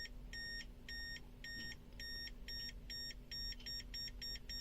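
Multimeter's non-contact voltage (NCV) detector beeping in short, even electronic beeps, its alert for live AC voltage nearby. The beeps come about twice a second at first and quicken to three or four a second from about three seconds in.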